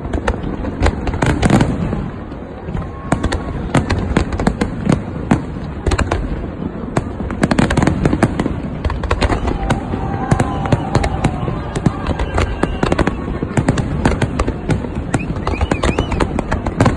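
Aerial fireworks display: shells bursting in a dense, unbroken run of sharp bangs and pops, many a second.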